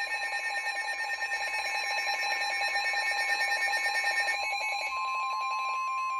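Weather radio alert alarms sounding: a rapid, pulsing electronic beep for about four seconds, then a steady single tone near 1 kHz starts about five seconds in, the NOAA Weather Radio warning alarm tone that comes before a warning message is read.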